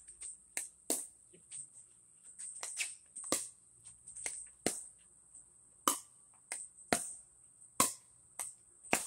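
Pickleball rally: sharp pops of paddles striking the hard plastic ball and the ball bouncing on the court, about a dozen irregular hits. A steady high-pitched hiss runs underneath.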